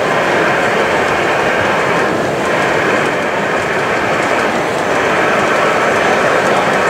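Gauge 1 (1:32-scale) model electric locomotive pulling tank wagons along the layout's track, with a steady rolling rumble of wheels on rail.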